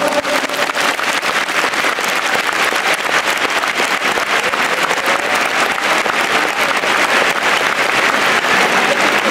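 Large stadium crowd applauding: a dense, steady wash of clapping from thousands of hands.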